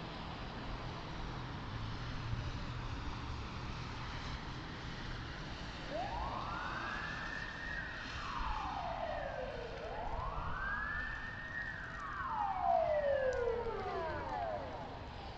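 A wailing siren sounds twice, starting about six seconds in: each time it climbs quickly in pitch and then slides slowly back down. Under it runs a steady low hum of engine and traffic.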